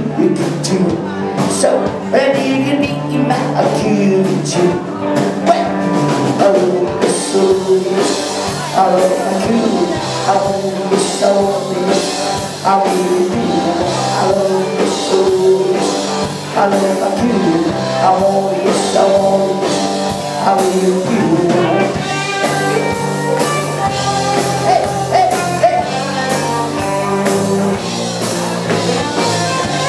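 Live rock band playing: electric guitars over a steady drum beat, with a singer.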